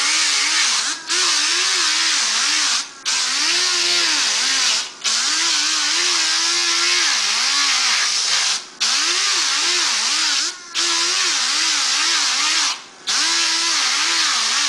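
Handheld electric grinder grinding down a plastic mop bucket, its motor pitch wavering up and down under a loud hiss of abrasion, with about six brief breaks.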